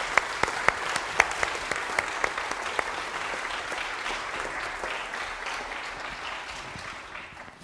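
Audience applauding, a dense patter of many hands clapping that gradually fades away near the end.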